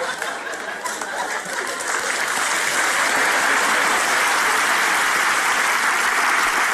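Studio audience applauding, the clapping building up over the first two seconds and then holding steady and loud.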